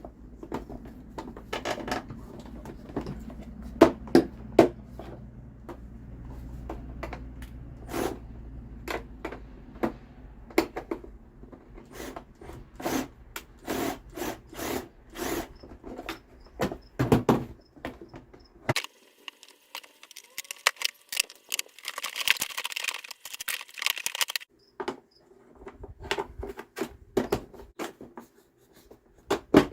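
Irregular clicks, knocks and clinks of tools and parts being handled while an electric pressure washer is put back together by hand. A low hum stops about two-thirds of the way through, and a short hiss follows a few seconds later.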